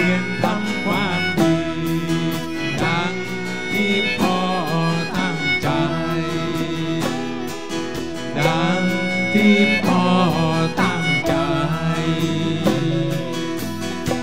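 A live band playing a song, with acoustic guitar, drums and percussion, and a sung melody line.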